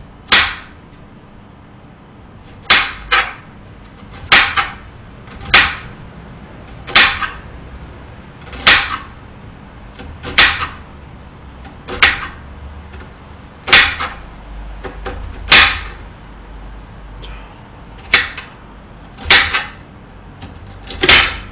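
Kitchen knife slicing an onion on a cutting board: slow, deliberate cuts, each ending in a sharp knock of the blade on the board, about one every second and a half.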